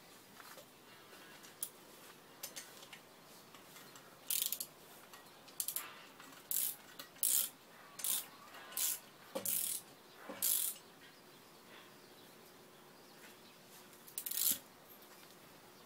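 A cloth rag rubbed in short scrubbing strokes over the bare cylinder block of a Koshin engine pump with its head removed: about seven strokes in quick succession from about four seconds in, then one more near the end.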